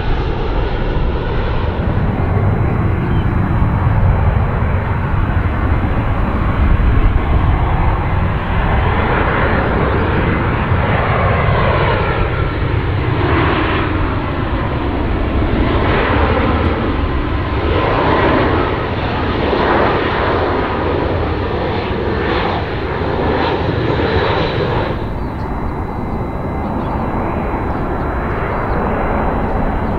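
Airbus A320-family jet airliners on final approach passing low overhead, one after another. Their engines make a steady deep rumble and hiss with a thin high whine, and sweeping whooshes rise and fall in pitch as each aircraft goes by.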